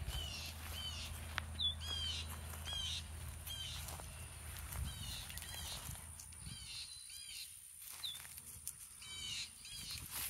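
Birds calling: short, bright chirps that sweep up and down, coming about once a second, with a gap near the middle. A low rumble sits underneath and fades about halfway through.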